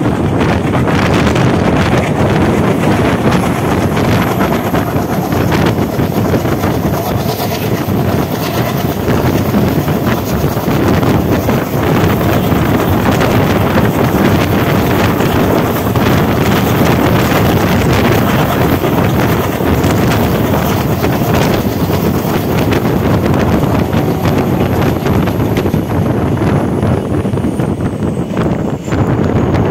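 Wind buffeting the microphone at the open window of a moving passenger train, over the steady running noise of the train on the rails.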